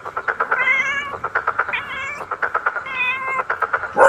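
Three short, wavering animal calls about a second apart, over a fast, steady run of clicks.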